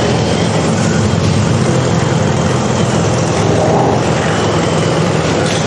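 Concrete mixer running with a steady engine drone.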